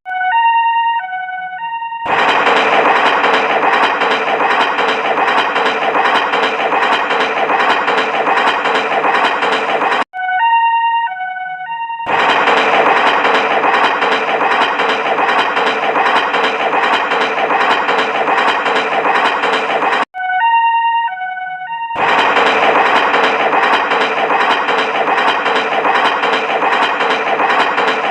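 A looped electronic sound: a short chime of a few stepped notes, then about eight seconds of loud, dense, harsh noise, the whole pattern playing three times.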